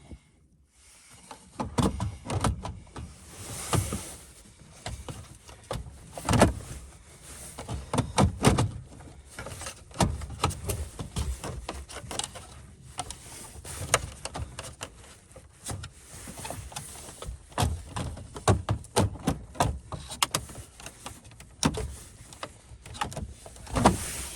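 Irregular clicks, knocks and scrapes of tools and hands working at a car radio in the dashboard, trying to pry it out of its mount, with several louder knocks along the way.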